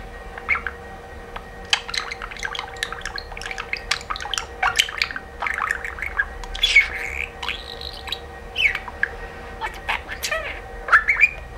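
Pet budgerigar chattering to itself: a continuous run of short chirps, clicks and warbling glides.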